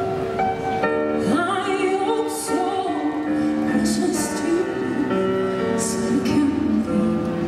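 Music: a woman singing, holding long wavering notes, over sustained instrumental accompaniment.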